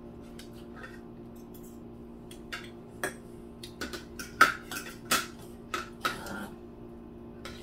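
Metal forks clinking and scraping against aluminium foil serving trays and dishes: a scatter of short, sharp clicks from about two and a half seconds in to about six and a half, the loudest near the middle. A faint steady hum runs underneath.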